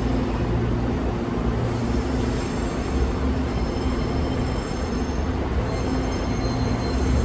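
Line 1 electric subway train at the station platform, running with a steady low hum and a faint high whine.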